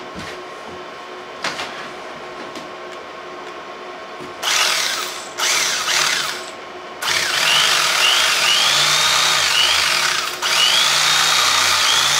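Electric carving knife switched on in two short bursts, then running continuously from a little past halfway as its reciprocating blades cut through a foam case insert. Its motor whine repeatedly sags and climbs back in pitch as the blades load up in the foam.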